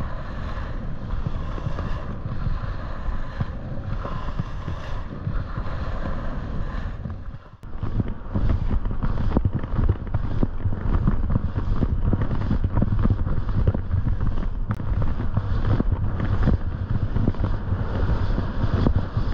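Wind rushing over an action camera's microphone during a downhill ski run, with the hiss and scrape of skis on snow. It breaks off briefly about seven seconds in, then comes back with rapid scraping and chatter.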